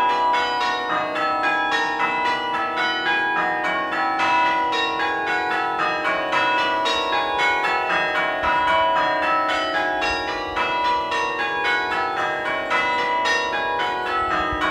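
Church tower bells ringing, struck one after another several times a second at different pitches, their tones overlapping into continuous ringing.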